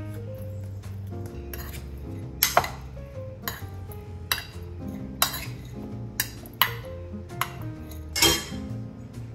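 Metal spoon clinking and scraping against an enamelware bowl while tossing seasoned cubes, about eight sharp clinks at irregular intervals, the loudest about two and a half seconds in and near the end. Background music plays under it.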